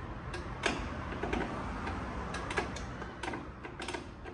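Drum brake star-wheel adjuster being turned to spread the brake shoes, clicking notch by notch in a few irregular clicks. The shoes are well out of adjustment, which is why the handbrake does not hold.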